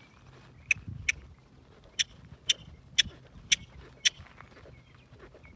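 A person clucking with sharp tongue clicks, about two a second, to urge a trotting pony on; seven clicks in all, stopping about four seconds in.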